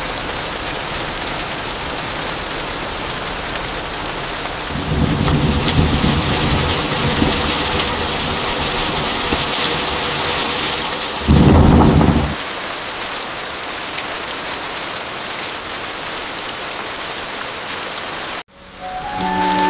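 Steady heavy rain, with a long rolling rumble of thunder starting about five seconds in and a louder, short thunderclap about twelve seconds in. The rain stops abruptly near the end.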